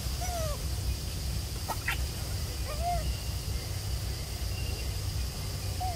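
An animal's short whistle-like call, falling at the end, repeated three times about three seconds apart, with a few sharp clicks near two seconds in, over a steady low rumble.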